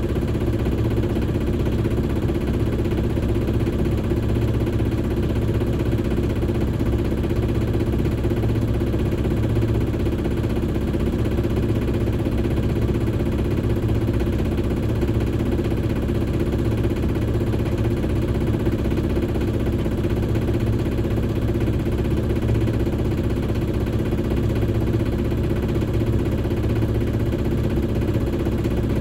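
Shipman 28 sailboat's engine running steadily while the boat motors along, an even drone that holds the same pitch and level throughout.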